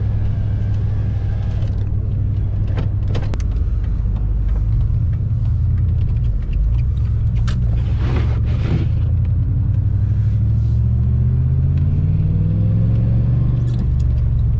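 Dodge Ram pickup's engine and road rumble heard from inside the cab, with the engine note rising steadily over the last few seconds as the truck accelerates. A few light clicks and a brief rushing sound come about eight seconds in.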